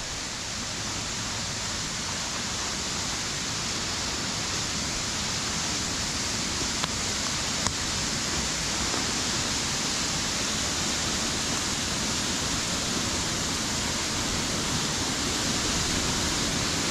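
Steady rush of a stream pouring down a waterfall, growing slightly louder, with two faint ticks about halfway through.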